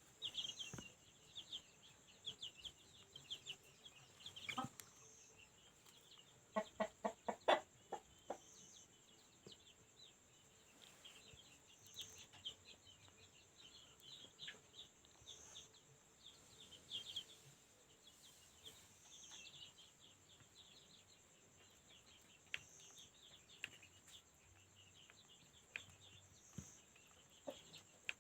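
Newly hatched chicks from an egg incubator peeping continuously in high, rapid chirps. About seven seconds in there is a short run of louder, lower clucking calls. A faint steady high whine sits underneath.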